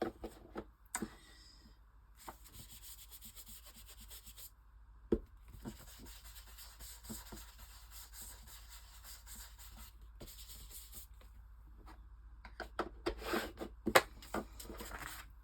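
Paper being rubbed in long strokes as a page is glued and smoothed down into a journal, with a sharp knock about five seconds in and a cluster of taps and a louder knock near the end.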